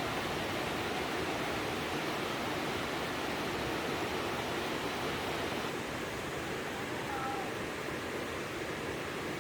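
Steady rushing of a mountain stream's water. A few faint, short, high wavering calls sound over it, near the start and again about six to seven seconds in.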